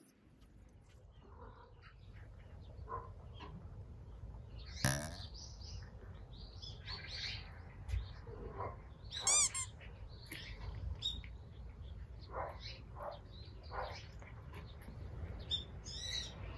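Wild birds chirping and calling on and off, with louder calls about five and nine seconds in, over a steady low outdoor rumble.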